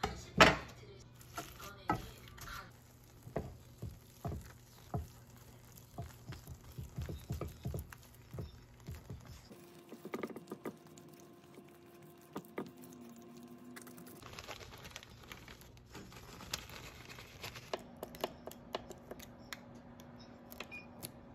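Metal potato masher knocking and scraping in a pot as boiled potatoes are mashed: a busy run of clicks and knocks, the loudest about half a second in. After that, quieter scraping of a spatula in a skillet and a few light clicks.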